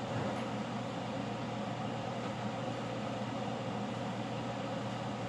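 A steady machine hum with an even rushing noise that does not change, as from a motor-driven fan.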